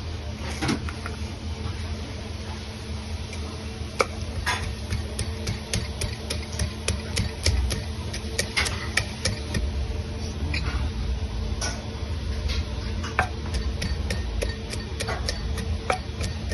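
Kitchen utensils clattering and tapping against pots, pans and dishes during cooking, with many irregular sharp clicks over a steady low hum.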